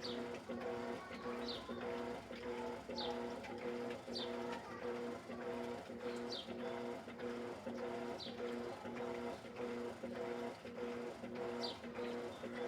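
Electrolux LED14 top-load washing machine in its wash cycle, the agitator motor humming in a rapid on-off rhythm as the agitator beats the clothes back and forth.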